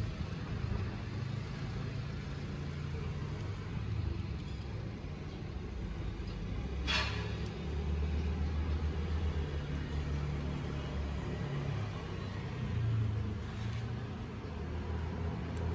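Low steady background rumble, with one brief sharp sound about seven seconds in.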